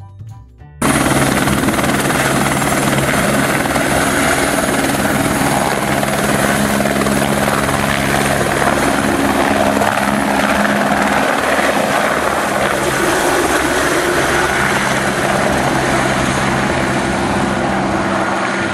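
Helicopter flying low past, a loud steady rotor beat with a high turbine whine, starting abruptly about a second in.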